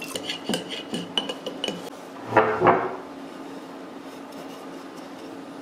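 A glass jar and metal finish cans clinking and knocking as they are handled: a run of light clinks, then a louder clatter about two and a half seconds in. After that only a faint steady hum.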